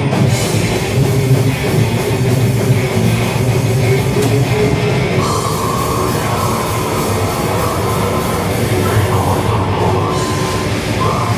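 Thrash metal band playing live: bass, electric guitar and drum kit, loud and steady.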